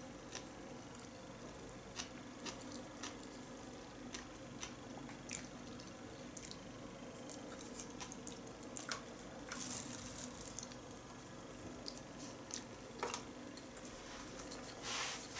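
A person chewing a sushi roll of rice, nori and flying-fish roe close to the microphone: small wet mouth clicks and smacks scattered throughout, over a faint steady low hum.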